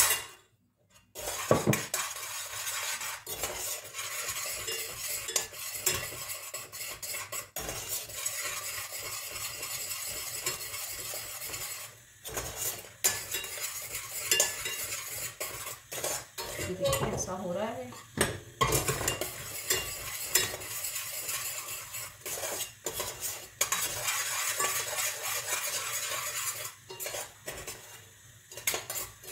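Stirring and scraping in a pan of hot caramel (melted sugar and butter with almonds being mixed in), with a steady sizzle and frequent clinks of the utensil against the pan.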